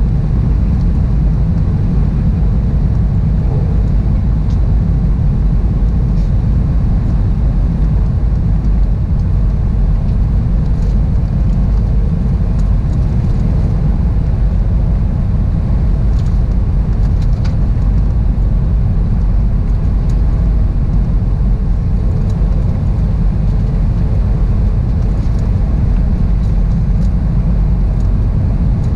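Steady cabin noise inside an Airbus A320-211 on approach, heard from a window seat behind the wing: the CFM56 engines and the rush of air over the fuselage make a deep, even rumble with a faint steady hum.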